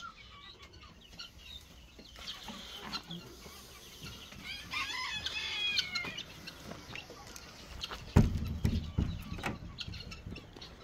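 Chickens clucking around the yard, with a rooster crowing from about four and a half to six seconds in. A loud, low thump comes just after eight seconds.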